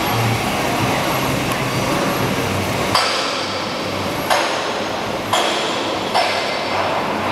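Steady machinery hum and workshop noise in a metal fabrication hall. From about three seconds in come five sharp metallic knocks, roughly a second apart, each with a short ring.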